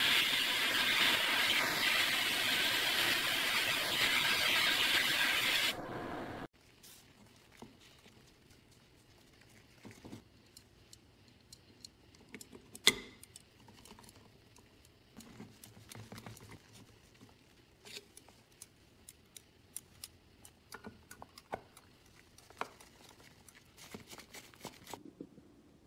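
Sandblast cabinet nozzle hissing loudly as it blasts a small cast metal parking-meter part, cutting off abruptly after about six seconds. After that come quiet scattered clicks and taps of metal parts being handled, with one sharper click midway and small screwdriver taps near the end.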